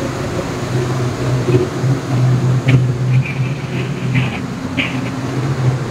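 Steady low machinery hum aboard a ship. A few faint short high chirps come in the middle.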